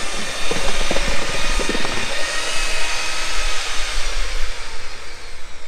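Double-paddle power mixer running steadily, its paddles churning cement repair slurry in a plastic bucket, with a few short knocks in the first two seconds.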